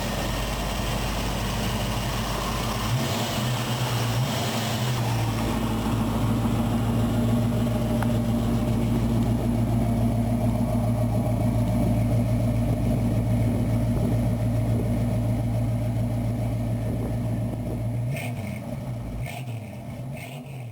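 A motor running steadily with a deep, even hum that fades out near the end.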